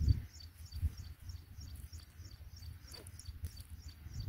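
Low, uneven rumble and thumps on the microphone, likely wind, with a short high chirp repeating steadily about three times a second above it.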